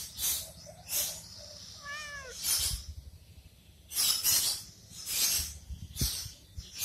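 Domestic cat giving one short meow about two seconds in, its pitch rising slightly and then falling, among repeated brief bursts of rustling noise.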